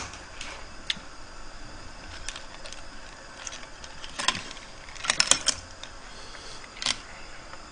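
Metal ladle clinking and scraping against a large steel pot of seafood noodle soup: scattered single clicks, a louder clink a little past four seconds, then a quick run of several clinks about five seconds in.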